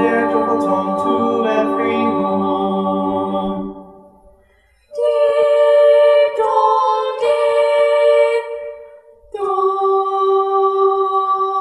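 Choir singing a cappella in long sustained chords. The first chord fades out about four seconds in; after a short pause the voices return on held chords, and the last one sits over a steady low note.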